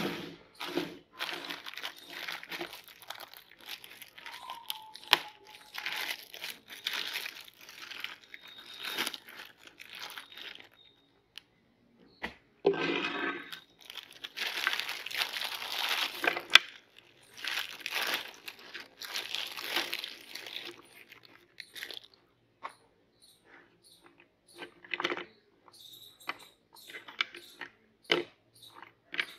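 Clear plastic bag crinkling and rustling in irregular bursts as it is handled and opened over a plate. In the last few seconds come a few short, light taps as cookies are set down on the plate.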